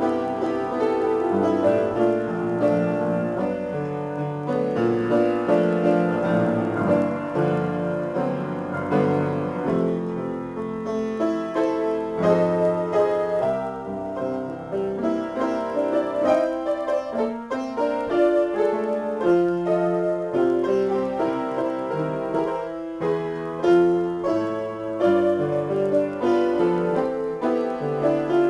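Upright piano played solo, an improvised piece with a continuous stream of notes and chords across the middle and low register.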